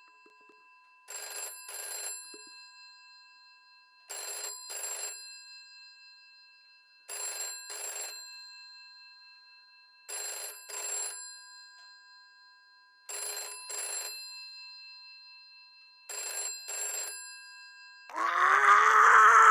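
Telephone bell ringing in double rings, six pairs about three seconds apart, with a steady ringing tone behind them. Near the end a different, louder sound cuts in.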